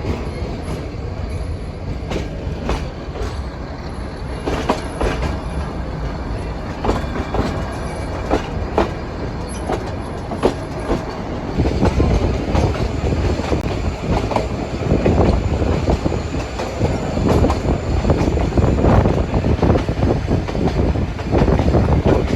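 Nilgiri Mountain Railway toy train running along the track, its wheels clicking irregularly over the rail joints. The running noise gets louder and heavier about halfway through.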